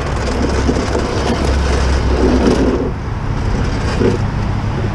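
Steady low rumble of a running motor vehicle, with broad noise above it.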